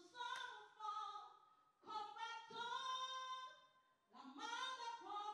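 A voice singing a melody in long held notes, in three phrases with short breaths between them.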